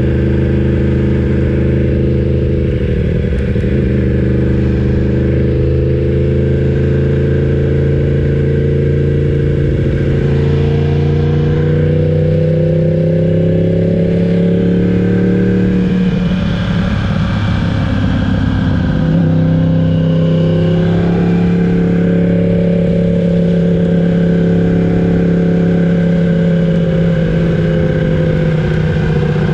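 Yamaha R1's crossplane-crank inline-four running under way, its pitch holding steady, rising slowly, then dropping and breaking up briefly a little past halfway before settling into a steady run again.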